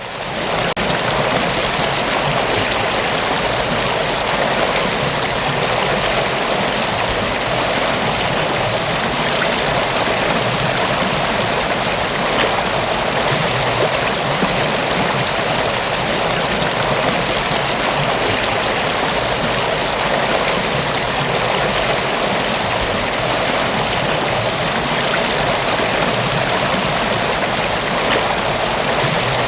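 Mountain waterfall: a steady, unbroken rush of falling water, fading up in the first second and then holding level.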